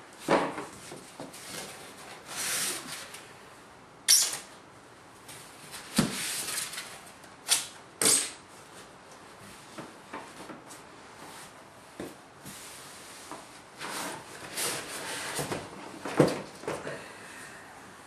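Foam packing and cardboard being handled as packing pieces are pulled out of a box: irregular scrapes, rustles and squeaks of foam against cardboard, with a few sharp knocks.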